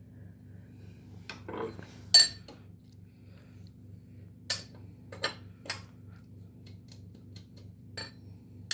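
Metal clinks and taps as the upper oil-level plug is fitted into the outboard's lower-unit gearcase: about six sharp knocks, the loudest about two seconds in, over a steady low hum.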